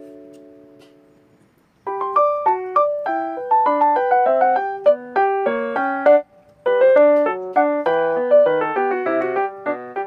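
Background music: a held chord fades away, then about two seconds in a quick keyboard melody of short notes begins, with a brief pause a little past the middle.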